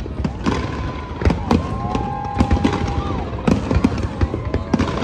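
Aerial fireworks bursting: irregular sharp bangs and crackles, about two a second, with a couple of held tones sounding through the middle.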